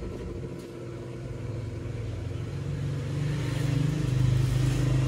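Electric blower fan of a cooking stove running, a steady motor hum with rushing air that grows louder over the last couple of seconds as it fans the fire to heat the pan faster.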